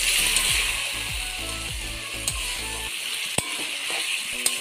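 Chicken pieces frying and sizzling in masala in a kadai while a metal spatula stirs them, scraping the pan and knocking against it a few times.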